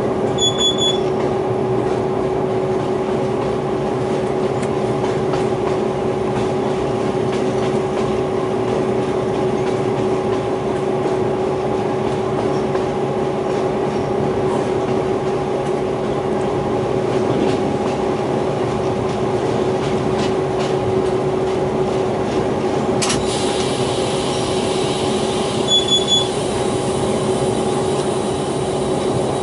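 DQ class diesel locomotive running steadily while hauling a loaded ore train, heard from inside the cab: a steady engine drone over the rumble of wheels on the rails. A short high double beep sounds twice, about a second in and near the end.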